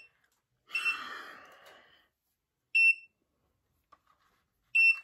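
Automatic rotating ceramic hair curler beeping while its curl timer runs: three short, high single beeps about two seconds apart, with a brief rustle around the first.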